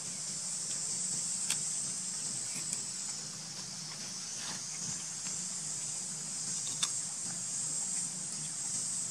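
Steady high-pitched chorus of insects, with a low steady hum beneath it. A couple of sharp clicks come about a second and a half in and again near the end.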